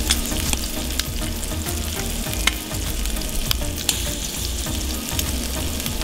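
Shrimp sizzling in a cast-iron skillet and chicken tenders on a charcoal grill grate: a steady sizzle with frequent sharp pops and crackles.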